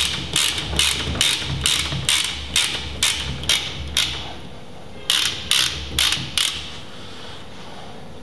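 Ratchet with a socket clicking as it unscrews the base of a KYB closed-cartridge motorcycle front fork, about two clicks a second. After a short pause about four seconds in come four more clicks, then it stops.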